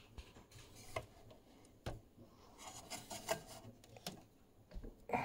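Faint handling noise: a few light clicks, one about a second in and a sharper one about two seconds in, with soft rubbing in between.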